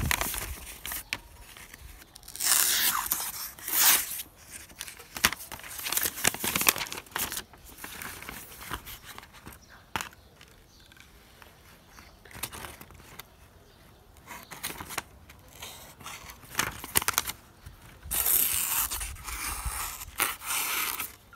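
Knife blade slicing through a sheet of slightly damp lined notebook paper: rasping cutting strokes a few seconds in and again near the end, with paper rustling and handling between. The knife cuts the paper cleanly, a sign of a sharp edge.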